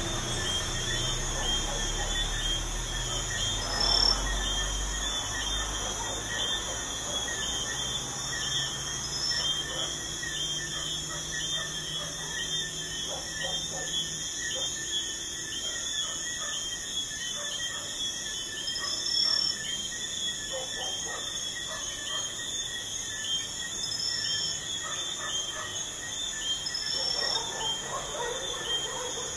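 Crickets chirping in a dense, continuous chorus, with a short high note repeating every few seconds. A low traffic rumble underneath is strongest in the first few seconds, then fades.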